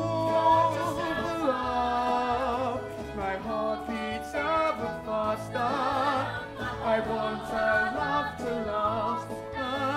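Musical theatre number: several voices singing long held notes, some with vibrato, over instrumental accompaniment with a steady bass.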